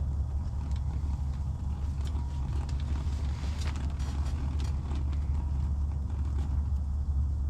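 A steady low hum with a few faint clicks and creaks over it.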